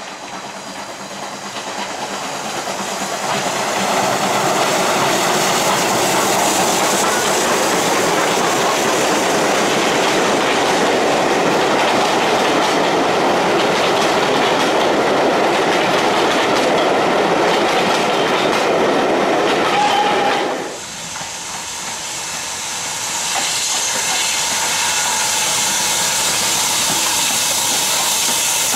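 A train running past on the track, its wheels clicking over the rail joints, building up over the first few seconds and holding loud and steady. About two-thirds of the way through it drops off sharply, and a steady hiss then builds up.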